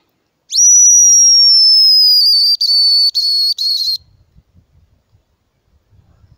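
Homemade hazel grouse call blown to imitate the hen: one long, high, thin whistle that slowly falls in pitch and breaks into a few short notes near the end, lasting about three and a half seconds.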